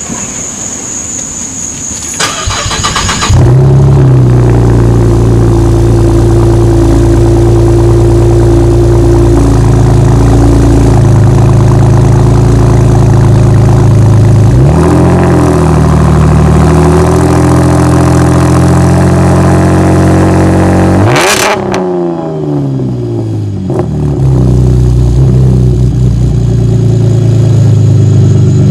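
V6 car engine cranked on the starter and catching about three seconds in. It then idles loudly through its exhaust, blipped once briefly and later revved sharply once, the pitch falling back to idle over a couple of seconds.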